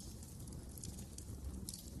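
Wood fire crackling in a fireplace: irregular sharp pops and snaps over a low steady rumble of burning.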